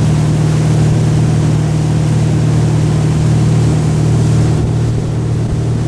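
An engine running steadily with a loud, low hum.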